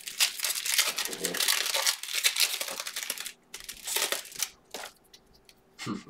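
Trading card pack wrapper being torn open and crinkled for about three seconds, followed by a few shorter crinkles.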